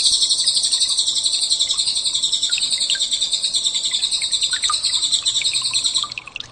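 Cililin song: one loud, rapid, high-pitched trill that runs on without a break and stops abruptly about six seconds in.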